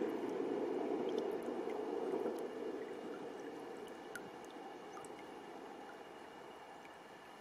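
Shallow water sloshing and trickling around a person standing in it, dying away steadily after about two seconds, with a few faint ticks.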